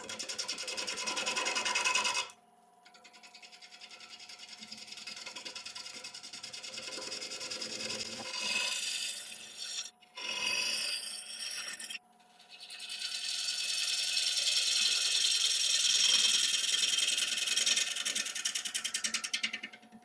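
A 5/8 inch bowl gouge cutting into a spinning apple wood blank on a wood lathe, a rasping scrape in several passes that break off briefly about 2, 10 and 12 seconds in. The lathe motor's steady hum runs underneath.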